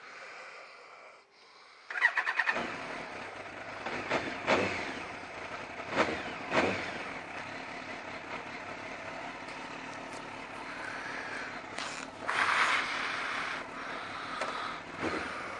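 Kawasaki ZX-12R's inline-four engine cranking and catching about two seconds in, then idling steadily, with a few sharp knocks along the way.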